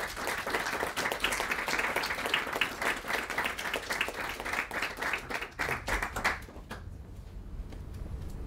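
Audience applauding: a dense patter of many hands clapping that thins out and dies away about six and a half seconds in.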